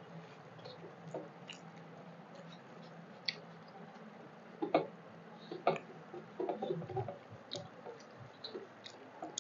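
Eating by hand: fingers squishing rice and curry against metal plates, and chewing, with scattered small clicks that are sharpest about five and six seconds in.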